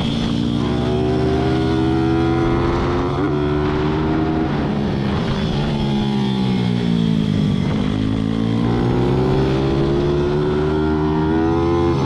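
Racing pit bike's single-cylinder engine heard from on board under hard riding. The revs climb for several seconds, drop as the bike slows for a corner about six to eight seconds in, then climb again as it accelerates out.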